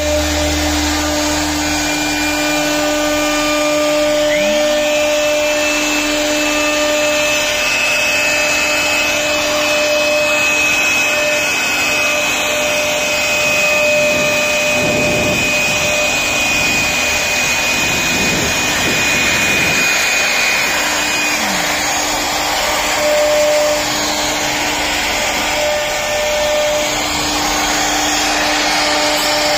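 CNC router cutting wood: a steady high spindle whine and lower hums over a loud rushing noise. The pitch glides briefly a couple of times.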